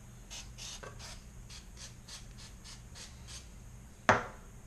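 Light, quick rubbing strokes, about three a second, as the glued pieces of a ceramic bowl are handled and wiped. A single sharp click stands out near the end.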